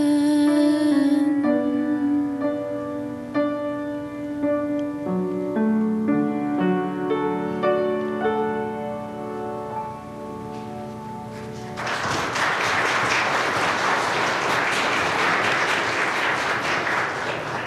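Piano playing a slow closing passage of single notes and chords. About twelve seconds in, the congregation breaks into applause that lasts to the end.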